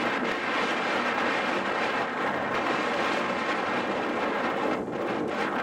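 Wind blowing on the microphone and through the trees: a steady rushing noise with no distinct events.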